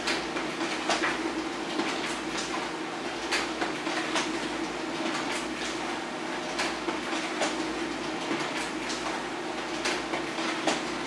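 HP LaserJet Pro M402d laser printer running a continuous print job: a steady motor hum with frequent clicks and rattles as sheets are fed through and pushed out onto the output tray.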